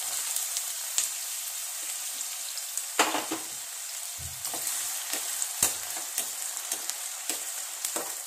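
Chopped onions sizzling steadily in hot oil in a kadai, with occasional sharp clicks and knocks of a spatula stirring them against the pan, the loudest about three seconds in.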